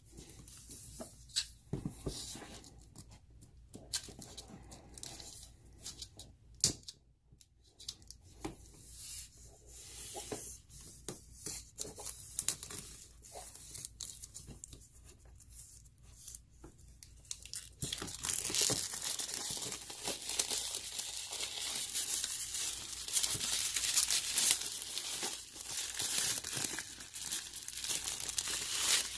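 Plastic shrink wrap being torn and peeled off a board-game component. Scattered rustles and small clicks give way, a little past the middle, to continuous, louder crinkling and tearing of the film.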